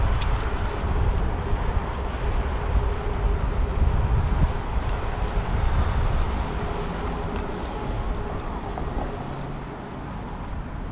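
Road traffic on a busy multi-lane city road, a continuous rumble of passing cars that eases off a little near the end.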